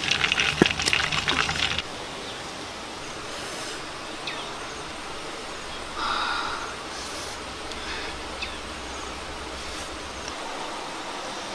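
Roasted chicken being torn apart by hand: a dense, loud crackle of skin and meat ripping for about the first two seconds. Then a much quieter steady hiss with a few faint ticks, and a brief soft sound about six seconds in.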